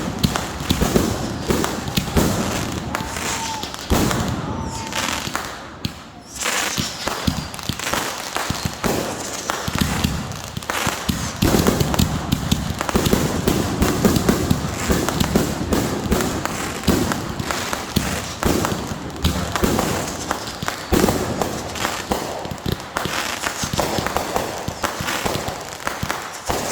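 Consumer fireworks going off in a dense, continuous run of crackling pops and bangs, with a brief lull about six seconds in.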